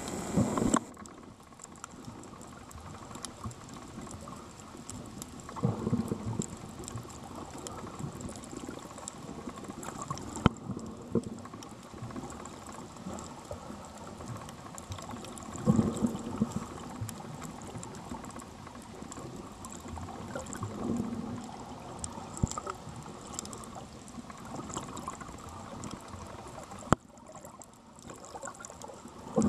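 Muffled underwater water noise heard through a submerged camera, with a few low swells of sloshing and two sharp clicks, one about a third of the way in and one near the end.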